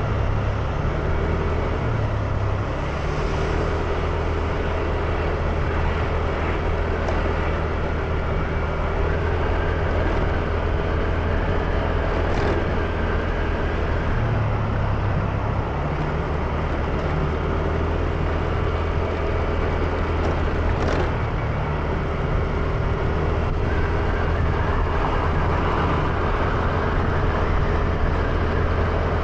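Motor scooter being ridden along a road: a steady low engine drone under road and wind noise, with other traffic around.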